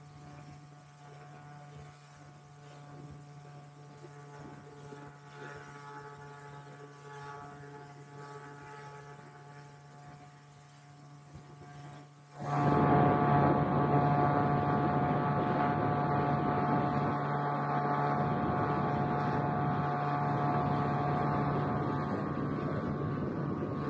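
Motorboat engine running at a steady pitch, a low hum. About twelve seconds in the sound suddenly becomes much louder and a dense rushing noise joins the same steady hum.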